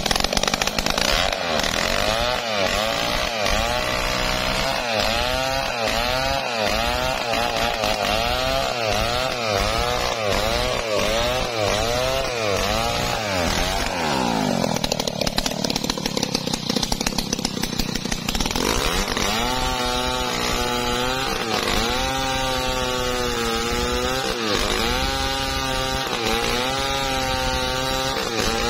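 Large Stihl two-stroke chainsaw running at high revs while cutting through a teak log, its engine pitch rising and falling about twice a second as the chain bites. About halfway through the pitch drops and blurs for a few seconds, then it returns to slower swells, roughly one a second.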